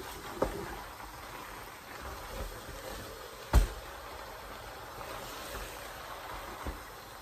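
Wooden spoon stirring leafy vegetables through a thick okra soup in a metal pot. The spoon knocks against the pot three times, about half a second in, halfway through (the loudest), and near the end.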